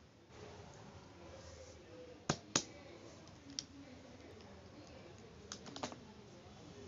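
Plastic felt-tip markers being set down one by one on paper over a cardboard box: sharp clicks and taps, the loudest two close together a little after two seconds in, then a quick cluster of several near the end.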